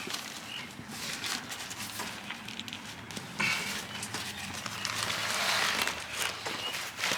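Rustling and handling noise with scattered small clicks and taps as the trampoline's skirt is worked onto the frame.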